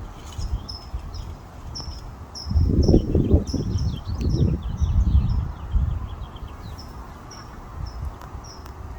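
High, short chirps repeated evenly about twice a second, with a few softer twittering notes. Wind rumbles on the microphone in gusts through the middle.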